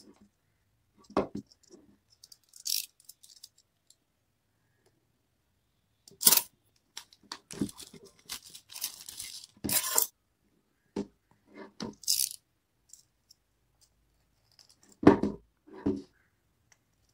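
Cardboard phone box handled on a table: sharp knocks and taps as it is set down and turned over, with clear plastic shrink-wrap being torn and peeled off from about 7.5 to 9.5 seconds in.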